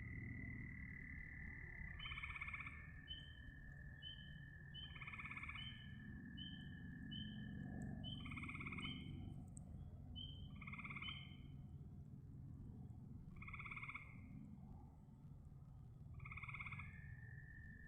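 A chorus of frogs calling: one frog repeats a call about every three seconds, with many shorter, higher chirps from others in between, over a steady high-pitched tone.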